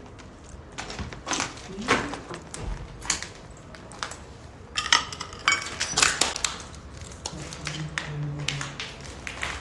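Irregular scuffs, clicks and knocks of people walking: footsteps on a gritty concrete floor with clothing rustle and phone handling, and a brief squeak about five seconds in.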